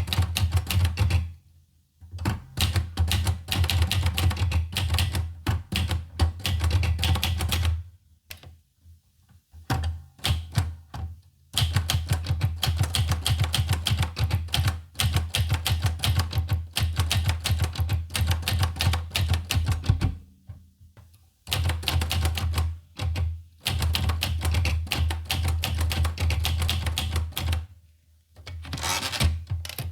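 Olivetti Lettera 25 manual portable typewriter being typed on: fast runs of key strikes, broken by a few short pauses.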